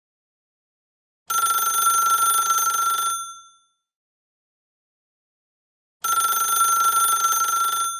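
Rotary telephone bell ringing: two rings of about two seconds each, with a silent pause between them, each fading briefly after it stops.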